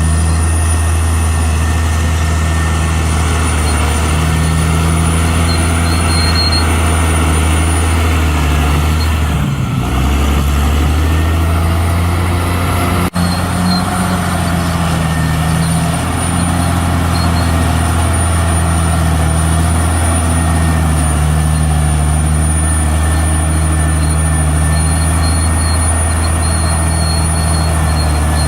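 CAT D6R XL bulldozer's diesel engine running with a steady, deep drone, dipping briefly about ten seconds in and cutting out for an instant about thirteen seconds in.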